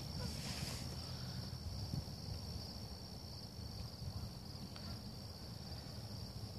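Insects in the shore grass chirring in a steady high-pitched drone, over an unsteady low rumble, with a brief hiss about half a second in.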